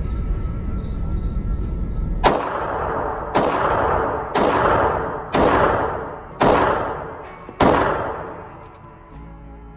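Six shots from a Diamondback DB380 .380 pocket pistol firing Federal brass ammunition, spaced roughly a second apart and starting a little over two seconds in, each with an echoing tail lasting about a second.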